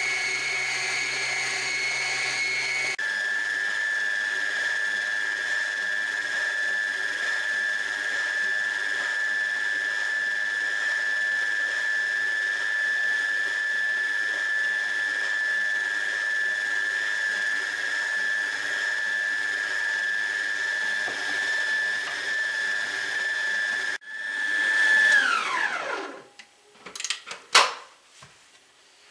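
Kenmore Elite Ovation tilt-head stand mixer running steadily with a high motor whine as it beats pound cake batter. The whine drops a little in pitch about three seconds in. Near the end the mixer is switched off and the whine falls away as it spins down, followed by a few sharp clicks as the head is tilted up.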